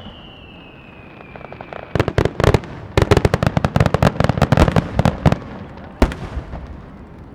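Aerial fireworks shells bursting over the lake: a whistle falls in pitch and fades over the first two seconds, then a rapid volley of sharp bangs and crackles runs from about two to five seconds in, followed by one more single bang near the end.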